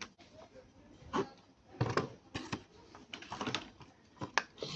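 Close-miked hands handling a toy truck and its packaging: irregular clicks, taps and short rustles, each lasting a fraction of a second.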